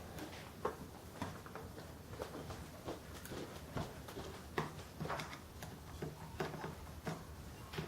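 Small Phillips screwdriver working out the screws that hold a laptop screen panel in its frame, giving faint, irregular clicks and taps of metal on small screws and plastic.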